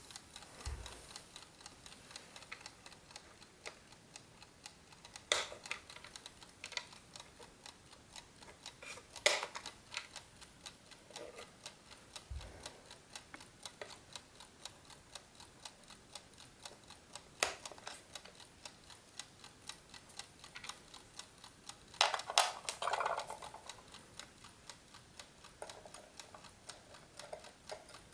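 Mechanical clockwork of a GARDE classic wooden chess clock ticking steadily and faintly, with a few louder, sharper clicks and knocks of the clock being handled.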